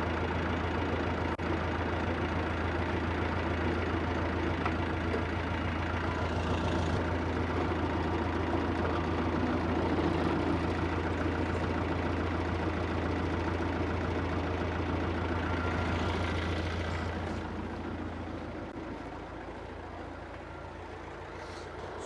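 Farm tractor engine running steadily at an even speed, then dropping to a quieter, lower run about three-quarters of the way through, as if throttled back to idle.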